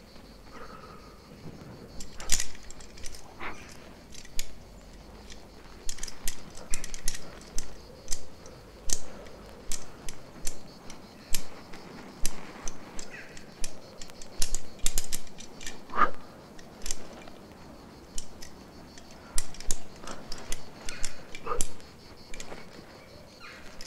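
Carabiners and quickdraws clinking on a rock climber's harness as he moves up the wall: irregular sharp metallic clicks, several a second, with a louder knock about sixteen seconds in.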